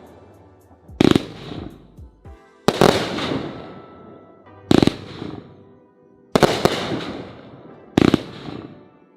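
Brothers Viral Vortex 42-shot fan-angled 500 g consumer firework cake firing. Shells burst with a sharp boom about every two seconds, each trailing off in a fading hiss.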